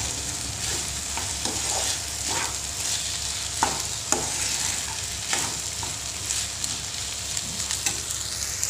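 Chinigura rice stir-frying in a pan: a steady sizzle, with the metal spatula scraping and tapping against the pan about once a second.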